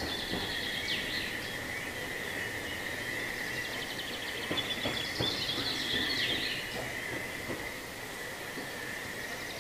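Birds chirping over a steady high-pitched tone, with a few faint knocks as the narrow-gauge steam locomotive 99-4511 rolls slowly along the track while shunting.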